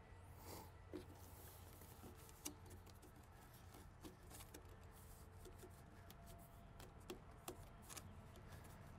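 Faint, scattered clicks and rubbing of air filter elements being worked by hand back into a tractor's air cleaner housing, with a sharper knock about two and a half seconds in and two more near the seven-second mark.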